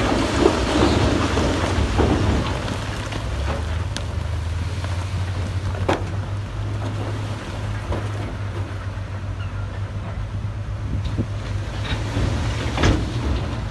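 Heavy diesel engine of earthmoving equipment running steadily with a deep drone. A noisy rattle comes in the first couple of seconds, and a few sharp metallic clanks follow later.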